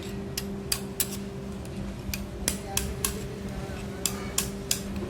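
Irregular sharp metallic clinks and taps, about a dozen, as tools and metal parts are handled during a grinder repair, over a steady low hum.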